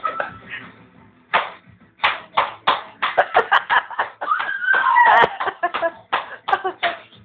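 Rhythmic hand clapping, about three or four claps a second, keeping a beat for a dancing toddler, with a voice calling out briefly near the middle.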